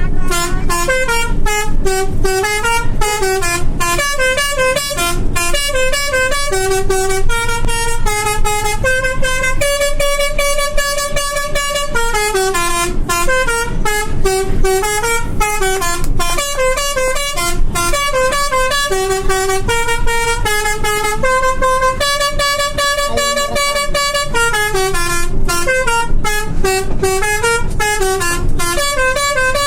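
Indonesian bus 'telolet' horn, a set of multi-tone air horns, playing a tune of stepping notes that move up and down, with only brief breaks between phrases.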